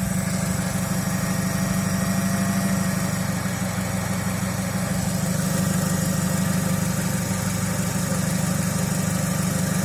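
Chevrolet Lacetti's engine idling with a steady low hum. The owner says it runs unevenly, with vibration felt through the steering wheel, and suspects an air leak at the intake manifold.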